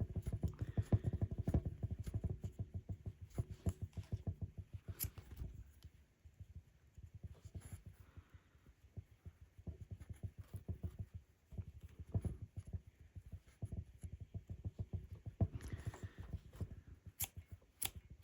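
Rug hook working wool strips through the backing: soft, rapid thumping and pulling as loops are hooked, with a few sharp clicks. It is busiest at the start and fainter through the middle.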